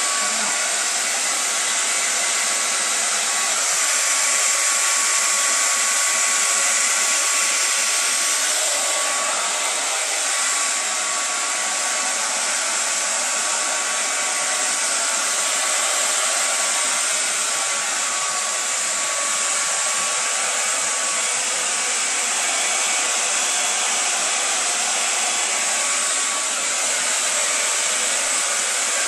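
Handheld hair dryer blowing steadily: a constant rushing hiss of air with a thin steady whine from its motor.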